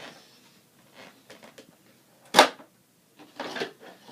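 Clicks and knocks of an unplugged vacuum cleaner being handled, with one loud knock about two and a half seconds in and a short rustle near the end.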